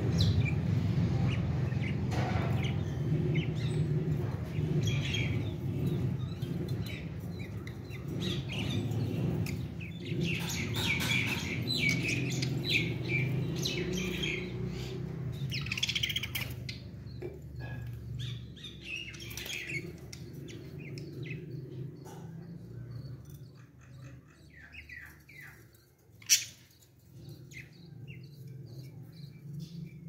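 Small parrots in an aviary chirping in many short, high calls, over a low steady hum that fades after about fifteen seconds. A single sharp click about twenty-six seconds in.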